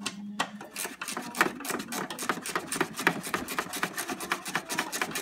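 A 13 mm ratcheting wrench clicking rapidly, several clicks a second, as it backs off a strut mount nut.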